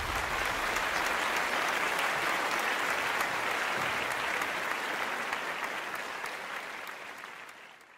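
Audience applauding, steady at first and fading out near the end.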